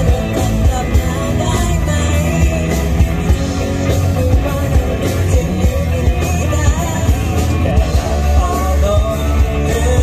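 Live rock band playing a pop-rock song through a PA, with electric guitars, bass and drum kit under female vocals sung into handheld microphones.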